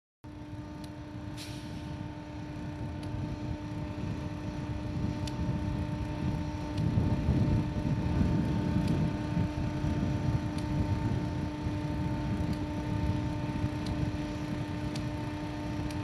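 Diesel locomotive pushing a railway snow plow at slow speed: a low engine rumble that swells to its loudest about halfway through and then eases a little, with a steady hum underneath.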